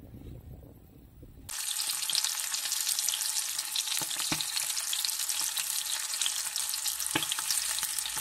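Small whole river fish frying in hot oil in a pan: a steady sizzle with scattered spits and pops, a few louder ones among them. It starts abruptly about a second and a half in, after a low rumble.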